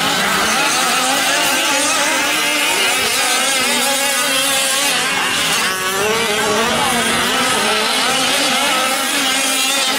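Several 1/5-scale gas RC trucks racing, their small two-stroke engines revving up and down together in a wavering, overlapping buzz as they throttle through the corners and jumps.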